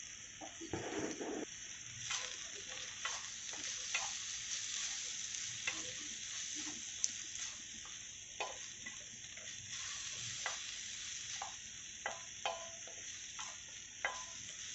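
Onion, tomato and egg masala frying on a hot tawa with freshly added spice powders: a steady faint sizzle, with scattered clicks and scrapes of a spatula stirring it.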